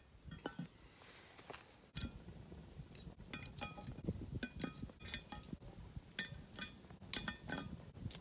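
Metal tongs setting charcoal briquettes onto the lid of an enamelled cast-iron pot: a run of sharp, ringing clinks from about three seconds in.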